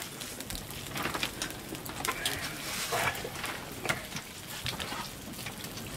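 Curry sizzling in a wok over a wood fire, a steady faint hiss with scattered small crackles and pops.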